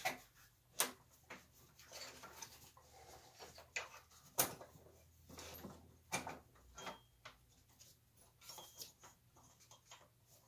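Scattered clicks and knocks of a drive belt being worked by hand off and onto the step pulleys of a Craftsman Model 103 four-speed lathe, to shift it to its lowest speed. The sharpest knocks come about a second in, about four and a half seconds in and about six seconds in.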